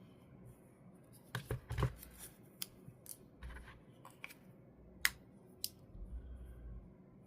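Sharp clicks and taps from handling a small plastic camera and its parts: a quick cluster of clicks about a second and a half in, then single clicks every half-second to a second.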